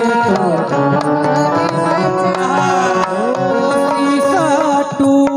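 Harmonium melody of held reed tones over steady hand-drum strokes: an instrumental interlude between the sung lines of a Bundeli folk ghazal.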